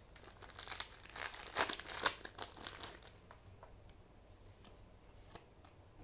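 Foil trading-card booster pack being torn open, its wrapper crinkling and tearing for a couple of seconds, then a few faint ticks of handling.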